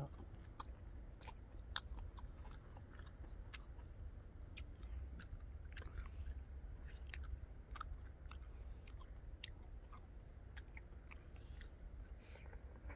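A man chewing a mouthful of food close to the microphone: scattered short, wet clicks and smacks throughout, over a low, steady rumble.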